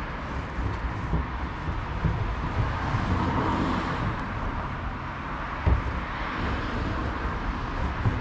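Outdoor street ambience with road traffic, a car passing around the middle, and a single sharp thump about five and a half seconds in.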